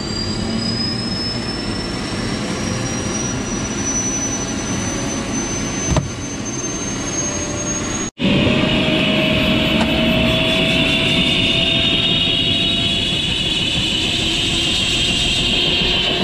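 Helicopter turbine engine starting up: a high whine climbing slowly in pitch over a steady mechanical running sound. The sound breaks off for an instant about halfway, then comes back louder, with a strong high whine and a lower tone that keeps slowly rising as the engine spools up.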